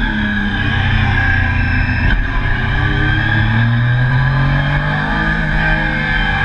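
Onboard sound of a Triumph Daytona sport bike's engine running hard at speed on a race track. There is a brief break about two seconds in, and the engine note then climbs slowly for a second or so.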